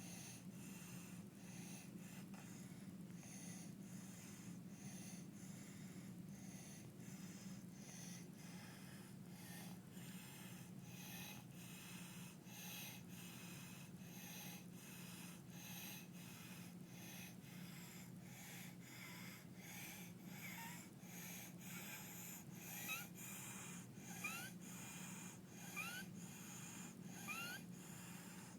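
A toddler with croup breathing hard at rest: fast, noisy breaths about one a second with wheezy stridor. In the last third, short rising squeaks come with the breaths. A steady low hum sits underneath.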